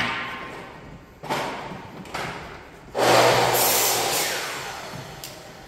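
Scraping noise of electrical conduit being dragged through a wall cavity toward a light-switch box: two short scrapes in the first two seconds, then a louder, longer one about three seconds in that fades away over a second and a half.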